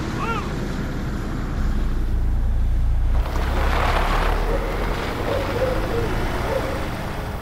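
An SUV driving on a wet road: a steady engine and tyre rumble with a short chirp near the start.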